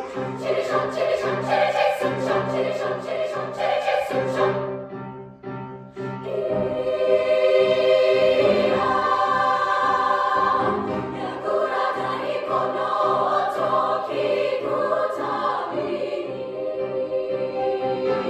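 Music with a choir singing: a pulsing passage breaks off about five seconds in, then the choir returns with long held chords.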